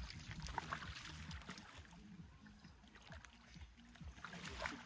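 Faint sloshing and splashing of shallow lake water as a person wades in it.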